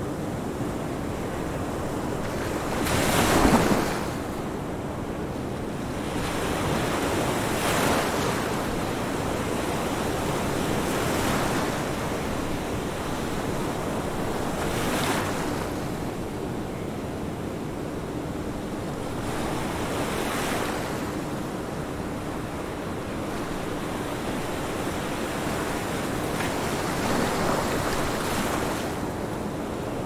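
Ocean waves washing in: a steady rush of surf that swells every few seconds, the largest swell about three seconds in. A faint steady hum runs underneath.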